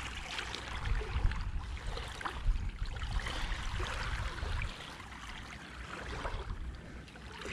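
Shoreline water washing and trickling over gravel, with wind rumbling on the microphone that eases off about two thirds of the way through, and a few faint clicks of handling.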